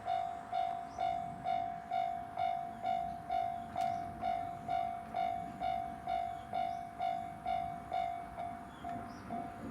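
Japanese railway level-crossing warning alarm ringing its repeated high ding about twice a second, each stroke sharp and fading. The dings grow weaker and uneven near the end.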